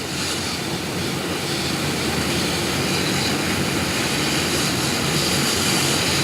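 Nitrogen plastic welder running, a steady rush of hot gas from the welding wand as it melts a polypropylene filler rod into the bumper plastic.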